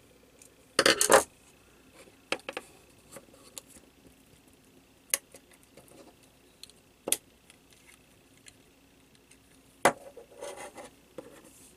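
Small hard-plastic clicks and knocks as a plug-in nightlight's casing is handled and pried apart by hand. The loudest is a short rattle about a second in, followed by single sharp clicks every couple of seconds and a brief rustle near the end.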